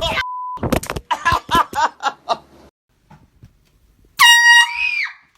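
A hand-held air horn gives one loud blast about four seconds in, a single note lasting under a second that bends down as it ends. Before it come a brief steady beep over speech, a few sharp knocks and excited, shouting voices.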